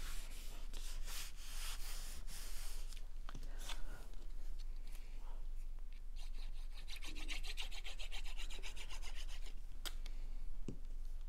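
Hands rubbing paper: a glued plaid cardstock panel pressed and smoothed flat onto a card base with the fingers, a dry brushing rasp in repeated strokes. The handling goes on with a small paper piece and a glue bottle, ending in a light tap.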